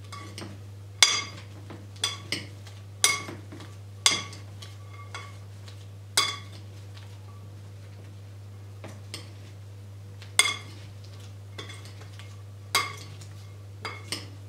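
A metal spoon clinking against a glass mixing bowl as chopped salad vegetables are stirred. The clinks are irregular, each ringing briefly, mostly a second or so apart, with a quieter stretch in the middle.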